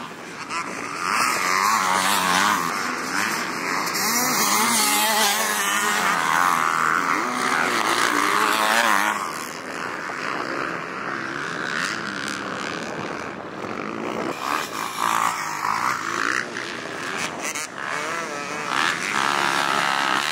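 A Yamaha YZ250F's four-stroke single-cylinder motocross engine revving hard and backing off again and again while the bike is ridden on the track. Its pitch climbs and drops with each throttle opening and gear change.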